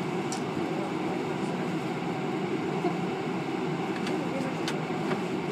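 Steady low hum of indoor background noise, with a few faint ticks.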